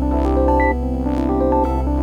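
Background music: synthesizer and keyboard notes over a steady low bass, in a short phrase that repeats just under once a second.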